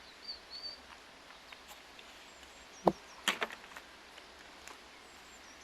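A single sharp knock about three seconds in, followed at once by a short clatter of lighter knocks, with faint bird chirps early on.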